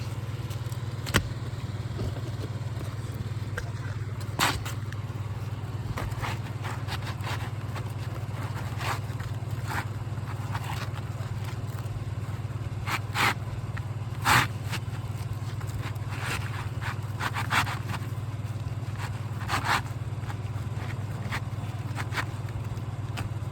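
Asphalt roofing shingle scraping across the roof surface as a replacement shingle is worked into place under the course above, in short scrapes a few seconds apart. A steady low hum runs underneath.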